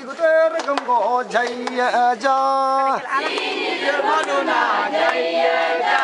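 A group of voices singing a repeated chant together, with one long held note about two seconds in that falls away near the three-second mark.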